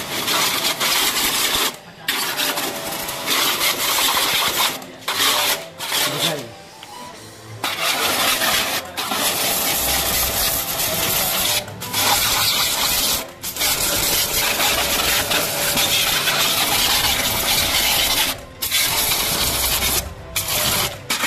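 Small electric jet pump of the kind used for AC servicing, running and driving a high-pressure water jet from a spray gun onto a scooter: a loud steady hiss of spray with a faint motor whine. The spray cuts off and restarts about ten times as the trigger is let go, one of the pauses lasting over a second.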